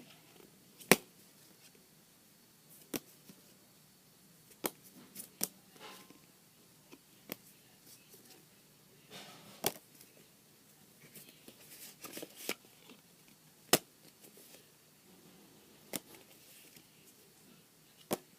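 Hands handling cards and small objects: about ten sharp, irregular clicks and taps over faint rustling.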